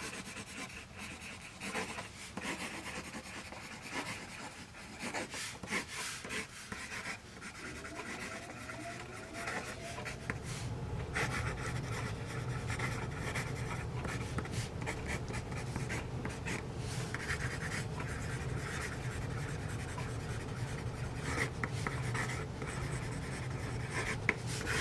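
Pencil writing on paper: irregular scratching strokes of graphite with small taps. A low steady hum joins about a third of the way in.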